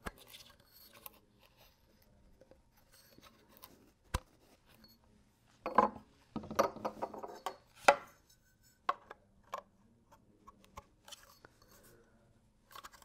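Molded plastic crate rails and corner connectors being handled, knocked against each other and the tabletop, and pushed into their sockets: scattered clicks and clunks, busiest about six to eight seconds in.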